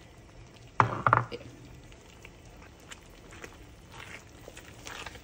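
A couple of sharp knocks about a second in, then soft scraping and light ticks of a silicone spatula stirring grated parmesan into a thick cream sauce in a nonstick skillet.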